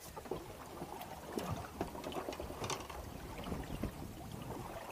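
Sea sloshing against a small boat's hull, with scattered light clicks and knocks.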